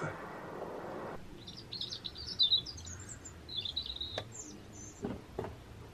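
A small songbird chirping: two runs of quick, high notes in the first half, after a brief hiss at the start, with a couple of faint knocks near the end.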